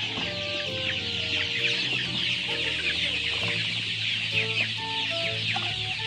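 A large flock of chicks peeping all at once: a dense, unbroken chorus of short high falling chirps. Soft background music with held notes plays underneath.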